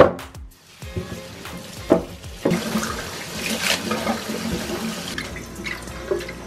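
Kitchen tap running into a stainless steel sink while celery, kale and apples are rinsed under it, the water splashing steadily from about two and a half seconds in. A sharp knock right at the start is the loudest sound, with a few lighter knocks after it.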